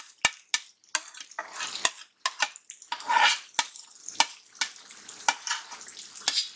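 Steel spatula tapping and scraping against a kadai as a wet onion-tomato-cashew paste is knocked off into hot oil and stirred in. The oil sizzles under a string of sharp, irregular taps.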